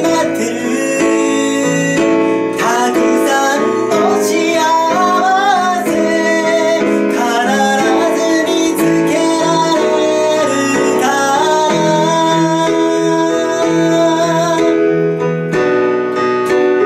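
A man singing a slow Japanese ballad to piano accompaniment. Near the end the singing stops and the piano plays on alone.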